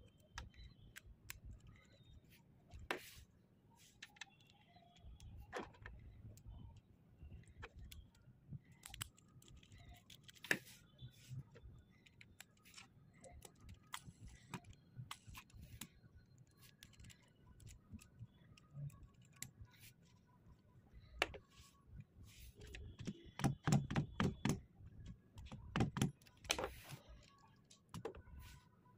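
Lego Technic plastic parts being handled and pressed together: scattered small clicks and knocks of pins, connectors and beams, with a busier run of clicks about three-quarters of the way through.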